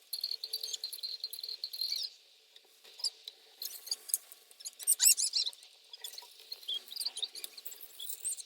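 Dancing cactus toy's small speaker giving out high-pitched squeaky chirps and glides, with scattered clicks.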